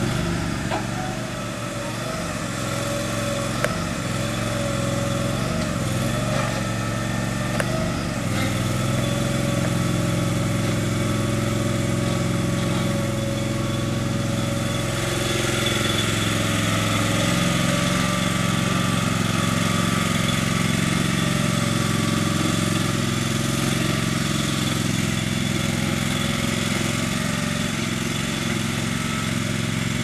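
Small engine of a towable backhoe running steadily as it powers the machine, with a few faint knocks in the first seconds; the engine gets a little louder about halfway through.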